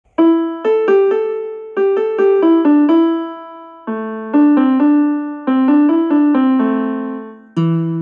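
A ringtone tune played on an electric piano: a simple melody of struck notes, each fading away, in two phrases, the second pitched lower than the first. A new, lower phrase begins just before the end.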